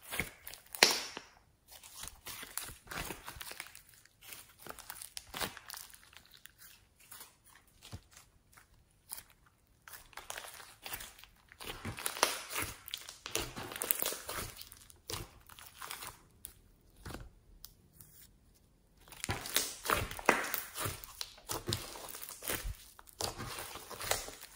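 Hands kneading, squeezing and stretching a large ball of fluffy clay-mixed slime, giving irregular squishy crackles and clicks. The sounds thin out for a few seconds about two-thirds of the way through, then pick up again near the end.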